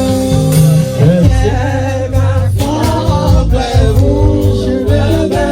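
Church band music with a heavy bass line and drums, with voices singing over it.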